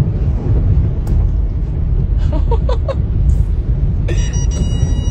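Loud, steady low rumble heard from inside a car beside fast-moving floodwater, with faint voices briefly in the middle and a steady high tone starting near the end.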